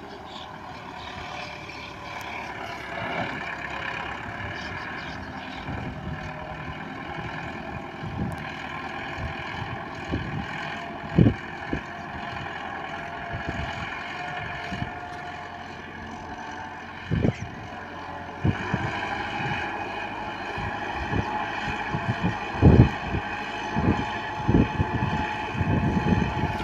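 Tractor engine running steadily under load as it pulls a tined cultivator through a flooded field, growing louder in the second half as it comes closer. Low gusts of wind thump on the microphone now and then.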